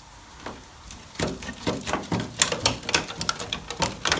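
Quick, irregular clicks and knocks, several a second, starting about a second in: hand tool work on the car's body metal.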